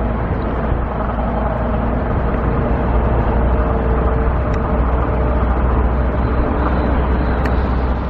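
Motor vehicle traffic on the street: a steady low engine and road rumble that swells a little through the middle.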